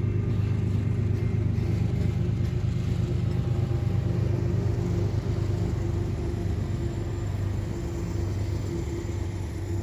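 A car driving at a steady pace: its engine and road noise make a continuous low rumble that eases off slightly over the second half.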